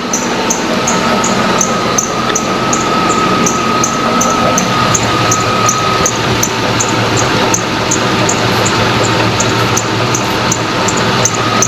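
Running GMC engine's accessory belt drive with a steady high whine and a regular high chirp about three times a second. The whine comes from an idler pulley the owner takes for bad, and it is still there after he has put a little lubricant on it; the chirp fits the belt's squeak.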